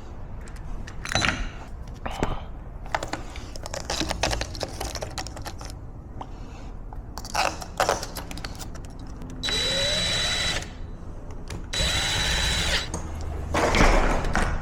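Power drill running in two bursts of about a second each, two-thirds of the way through, each with a steady high whine. Before that come scattered small clicks and knocks of hardware being handled.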